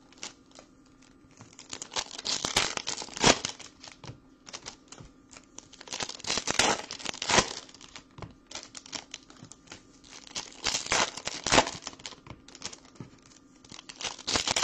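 Thin plastic card sleeves and a trading-card pack wrapper crinkling and crackling as cards are handled. The crinkling comes in several bursts of a second or so, with quieter gaps between.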